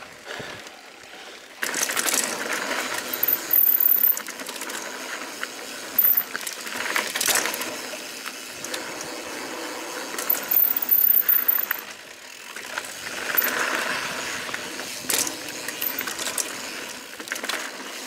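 Santa Cruz 5010 full-suspension mountain bike rattling and clattering as it rides down a rough dirt trail: parts and chain clanking over the bumps, tyres on dirt, with several sharp knocks at the harder hits.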